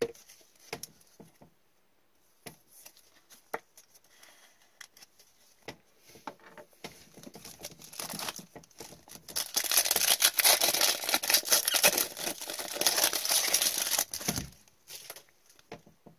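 Trading-card pack wrappers being torn open and crinkled, loudest for about five seconds from around the middle. Before that, scattered light clicks and taps of cards being handled.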